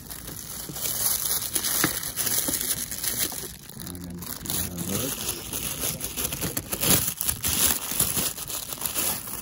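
Thin plastic packaging sleeve crinkling and rustling as it is handled and pulled off a boxed model car right at the microphone, with irregular crackles throughout.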